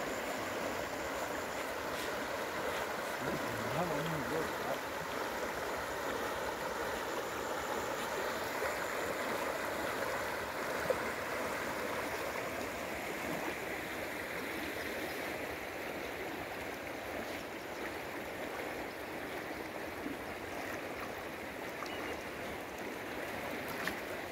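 Wide, fast-flowing river rushing and swirling past a stony bank, a steady sound of moving water. A single brief click near the middle.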